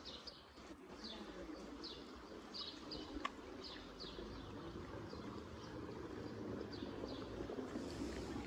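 Small songbirds chirping: short falling chirps repeating about twice a second, over a faint low steady hum, with one sharp click about three seconds in.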